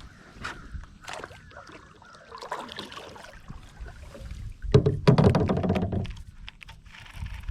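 Knocks, clicks and splashing on and around a plastic fishing kayak, loudest for about a second around five seconds in.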